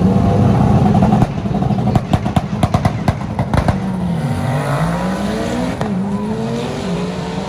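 Drag car engine revving hard. A rapid run of sharp exhaust cracks comes about two to three and a half seconds in, then the revs drop and climb again several times.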